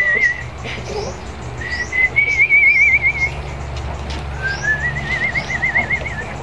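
Someone whistling three long notes at about the same pitch, each wavering into a quick trill, the last one sliding up before it trills. Small birds chirp in the background over a low steady hum.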